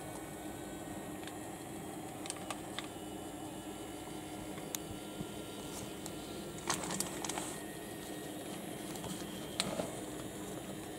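Small electric motor of a battery-powered wooden toy train car running steadily as the train rolls along the track, with a few light clicks of wheels over the track joints, a cluster of them about two-thirds of the way through.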